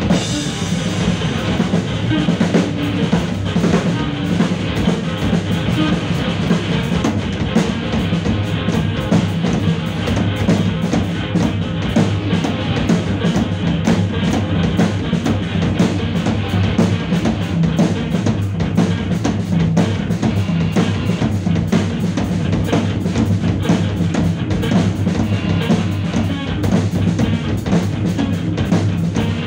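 Live trio of drum kit, bass guitar through effects and modular synthesizer playing. Fast, dense drumming runs over a held low bass drone.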